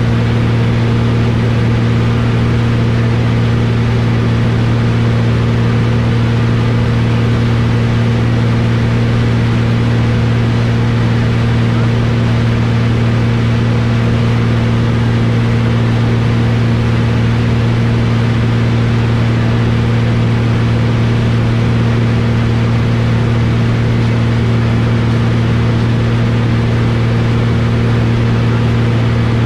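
Light aerobatic aircraft's engine and propeller droning steadily, heard from inside the cockpit under its canopy, a deep even hum with a rushing hiss over it and no change in pitch.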